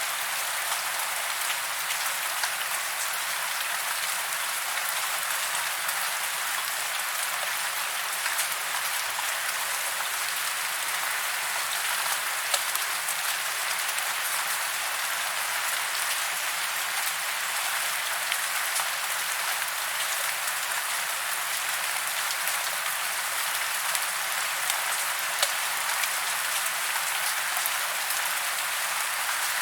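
Steady rain falling on a surface: an even hiss of rain with fine individual drop ticks, no rise or fall.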